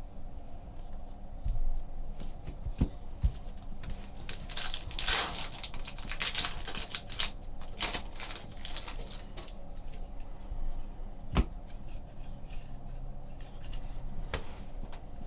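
Trading cards being handled and flipped through by hand, with light taps and clicks throughout and a longer rustling, scraping stretch about halfway through.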